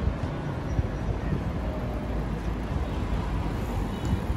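City street traffic: a steady low rumble of cars passing on the road.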